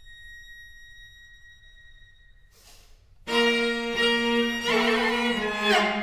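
String quartet: a single violin holds one soft, very high note, which stops a little over two seconds in. About a second later the full quartet comes in suddenly and loudly with a sustained chord, the cello giving a low floor, and plays on.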